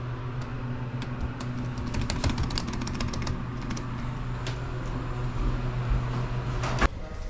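Vehicle engine idling with a steady low hum, with a quick run of clicks and rattles. Near the end the hum cuts off at a sharp click.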